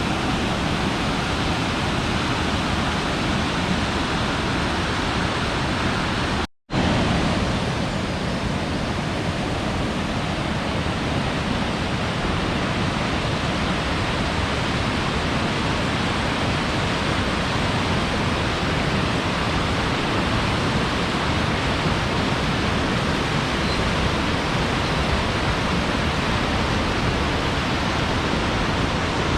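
Steady rush of fast-flowing mountain water, loud and even across the whole range. About six and a half seconds in it cuts out for a split second, then carries on unchanged.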